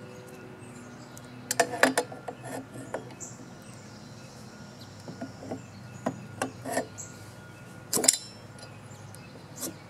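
Scattered metallic clicks and knocks of a hand wrench on a two-stroke backpack blower engine, gripping the flywheel hub to work a stuck, sooted-up piston free. The loudest clanks come about two seconds in and again near the eight-second mark.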